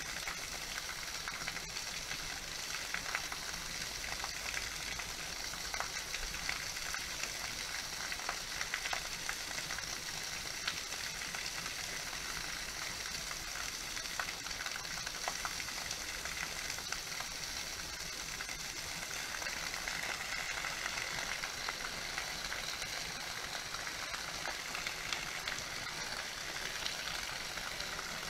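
Small waterfall pouring from two pipe spouts, splashing steadily onto rock and into a shallow pool as a constant hiss of falling water, with faint scattered splash clicks.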